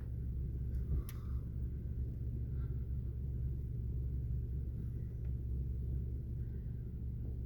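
Steady low rumble of an idling car heard from inside its cabin, with a faint click about a second in.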